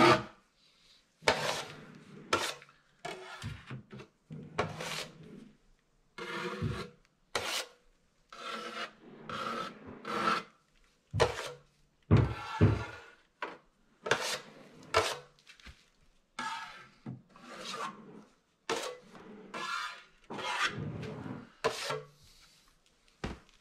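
Metal drywall taping knife scraping joint compound (mud) onto the edges of an opening cut in drywall, in short separate strokes about one a second with brief pauses between.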